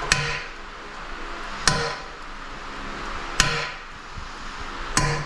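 Hammer tapping on the edge of a hard ceramic tile, four sharp strikes about a second and a half apart, each with a short ring. The taps trim away the excess left around a hole cut with an angle grinder.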